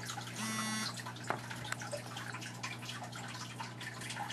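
A Motorola Droid phone's vibration motor gives one short buzz, about half a second long, as the phone powers off. A single faint click follows about a second later, over a steady low hum.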